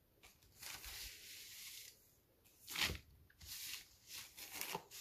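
Gym shorts' fabric rustling as they are handled and turned over: a longer rustle about half a second in, a sharper swish near the three-second mark, then a few shorter ones.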